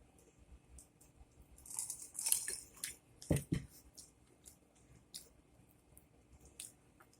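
Close-miked chewing and mouth sounds of someone eating, with small wet clicks throughout, a crackly burst about two seconds in, and two low thumps about a second later.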